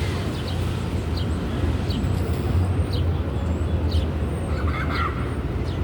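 Birds chirping in short, high notes several times, with a louder call about five seconds in, over a steady low rumble.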